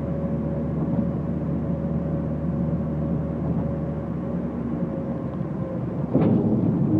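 A 2011 Volkswagen Jetta S, its engine and Magnaflow axle-back exhaust droning steadily while driving, heard from inside the cabin. About six seconds in, the sound gets suddenly louder.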